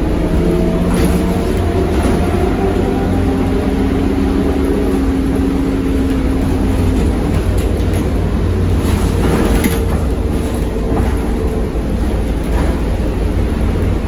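Interior ride noise of a ZiU-682V trolleybus under way: a steady rumble with the DC traction motor's whine drifting slowly in pitch, and a few short knocks and rattles from the body.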